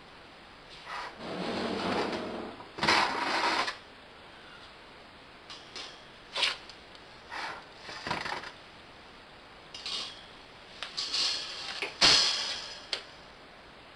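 Stainless-steel wire shelves being slid along the runners of a laboratory hot air oven's chamber and set down, with metal scraping and rattling. A scraping slide comes early, then a string of short sharp clanks, the loudest near the end.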